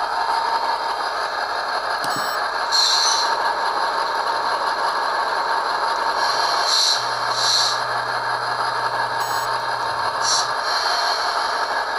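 Diesel prime mover sound from the ESU LokSound decoder, played through the small speaker of an HO scale Rapido F40PH-2D model locomotive. It runs steadily while the model pulls under load against a pull meter, with four short hisses about 3, 7, 7.5 and 10.5 seconds in.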